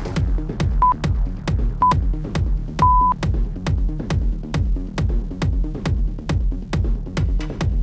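Electronic dance music with a steady kick-drum beat. Over it, an interval timer beeps twice about a second apart and then gives one longer beep about three seconds in: the countdown marking the switch between a work and a rest interval.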